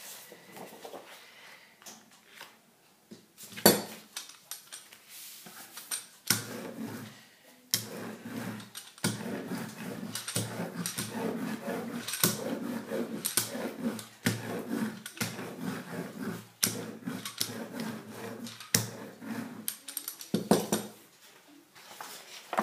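Hand brayer rolled back and forth over a sheet of paper laid on inked craft foam, a choppy rumble that starts about six seconds in and stops near the end. A sharp knock a few seconds in is the loudest sound, with another knock near the end.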